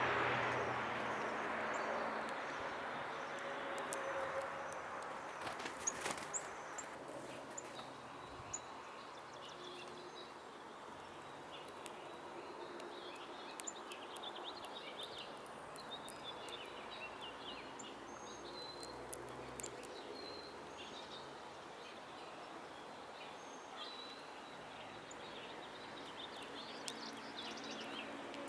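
Small birds giving short, high chirps, scattered through the middle and near the end, with occasional sharp clicks. Over the first few seconds a rushing noise fades away.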